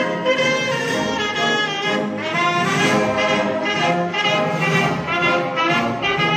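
Instrumental orchestral music led by brass, playing a melody of held notes.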